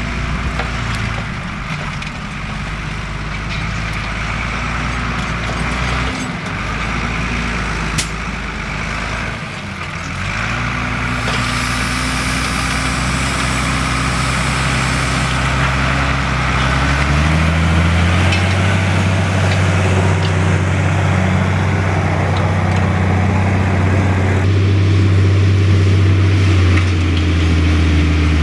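Fendt Favorit 512 C's six-cylinder diesel engine working steadily under load while ploughing. It grows louder and deeper a little over halfway through as the tractor comes close, with a hiss over it for a few seconds in the middle.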